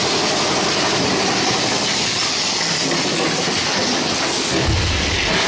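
Mine-train roller coaster running along its track: a steady clatter and rattle of the cars, with a brief hiss about four seconds in and a deep rumble starting just after it, near the end.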